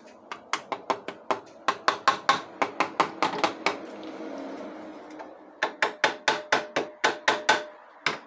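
Quick light taps from the handle of a screwdriver on the ZF6HP28 transmission's valve body and mechatronic plate, about five a second, seating the solenoid connections down onto their tight pins. The taps run in two spells with a pause of about two seconds between them.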